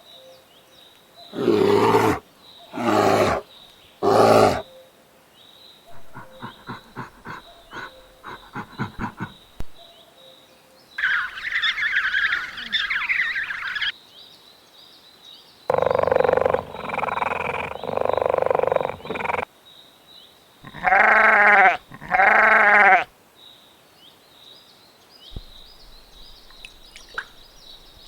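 A string of different animal calls, one after another with short pauses: three loud calls, then a run of quick pulsed calls, a harsh call, longer drawn-out calls, and two pitched bleat-like calls near the end.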